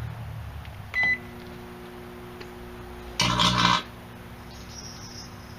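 Microwave oven keypad beeps once about a second in, then the faulty oven starts running with a steady hum. About three seconds in a loud buzzing crackle lasts about half a second: arcing from the metal bolts and scrap loaded inside.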